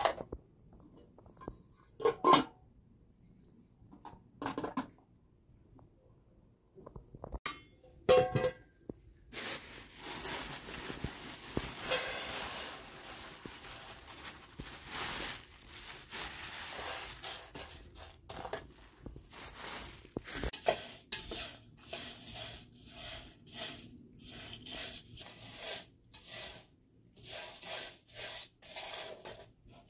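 A few separate clinks of china and metal, then a continuous dense rattle and plastic crinkle as raw sunflower seeds are poured from a plastic bag into a metal pan. This is followed by a spoon scraping and stirring the seeds in the pan in short repeated strokes as they roast over charcoal.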